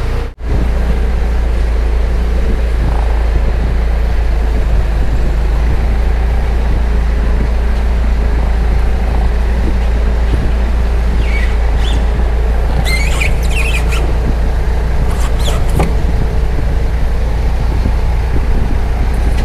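Forklift engine running steadily while it carries a suspended winch, with a few short high-pitched clinks or squeaks between about 11 and 16 seconds in.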